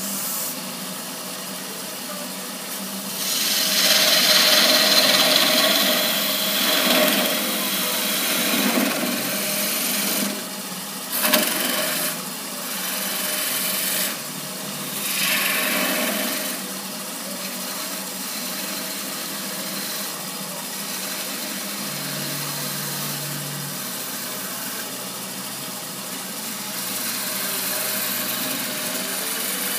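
Wood lathe spinning a thin-walled wooden goblet while a hand-held turning tool cuts into it, the cutting noise swelling and fading in passes as the tool is fed in. The loudest pass comes about four seconds in, with a sharp knock near the middle.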